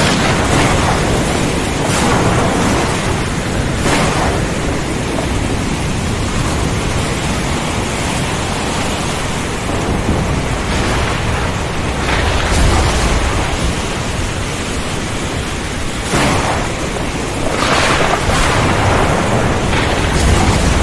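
Heavy rain and strong wind make a dense, steady hiss, broken by several brief surges. A low rumble of thunder swells about twelve seconds in.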